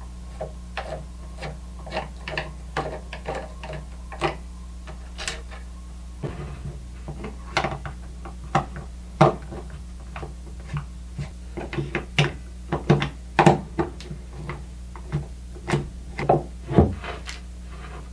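Screws being backed out of the side of an old Craftsman router's housing with a screwdriver: irregular small clicks and light knocks, busier and louder in the second half.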